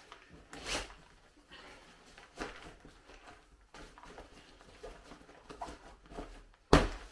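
Rustling and handling of camping kit and backpack fabric in a small room, with a few brief swishes and one sharp knock near the end, the loudest sound.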